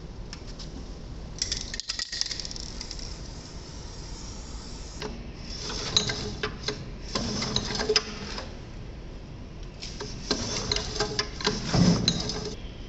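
Recoil starter of a freshly rebuilt G350L small gasoline engine being pulled several times, each pull a short rattling, clicking whirr of the rope and ratchet as the engine turns over. The engine does not fire.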